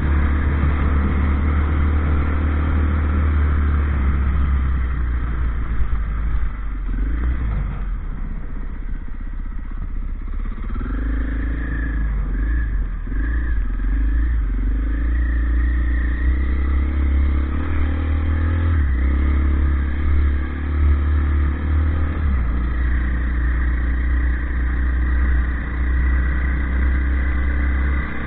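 Off-road motorcycle engine running under way, easing off for a few seconds and then revving up in several short rises around the middle, with a steady low wind rumble on the microphone.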